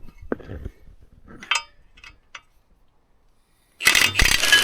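Light metallic clinks and taps of hand tools on machine parts, then, near the end, a loud harsh rattling burst.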